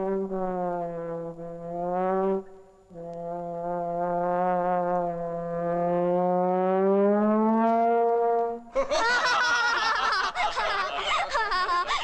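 Two long, steady brass horn notes in the film's soundtrack, the first briefly broken off about two and a half seconds in, the second rising in pitch near its end. A loud, dense mix of sounds takes over about nine seconds in.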